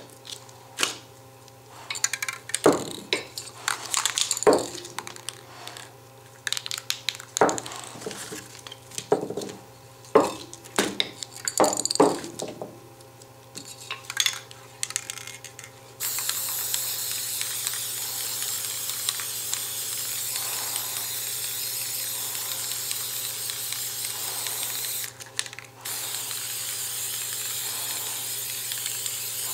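Clinks and knocks of a metal pot lid and paint cans being handled on a table, then a steady hiss of an aerosol spray-paint can spraying, which stops for about a second and starts again.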